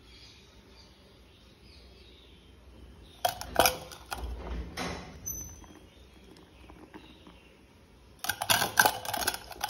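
Steel spoon and steel bowl clattering and scraping in two bursts, one about three seconds in and one near the end, as batter is handled in the bowl.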